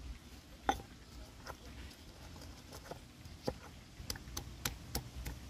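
Irregular sharp pops and crackles, about a dozen, from cooking over a wood fire, coming more often in the second half.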